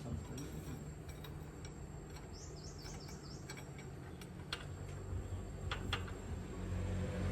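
Faint scattered light clicks and ticks, with a quick run of short high chirps around the middle and a low hum rising toward the end.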